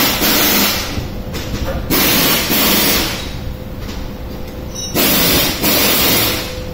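Repeated loud bursts of hissing, each about a second long, over a steady low rumble.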